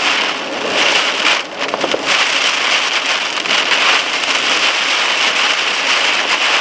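Heavy thunderstorm rain beating on a car, a steady dense hiss with a brief dip about one and a half seconds in.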